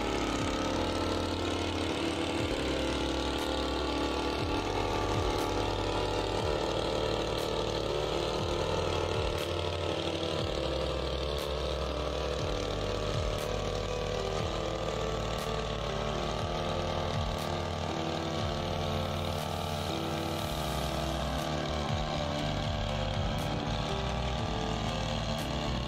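Backpack power sprayer's small engine running steadily at a constant speed, driving the pump while the wand sprays water over the rice. Its sprocket spring has been swapped for a Honda motorcycle drum-brake shoe spring, for a stronger spray and lower fuel use.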